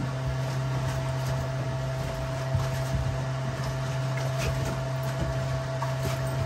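Boat's engine-compartment ventilation blower running after being switched on: a steady electric motor hum with a fainter higher whine, purging fumes from the engine compartment before the inboard engine is started.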